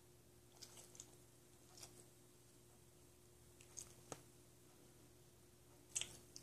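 Near silence with a faint steady hum, broken by about six soft scattered clicks and mouthing sounds from a kitten and a Boston terrier nuzzling and play-biting at each other up close; the loudest click comes near the end.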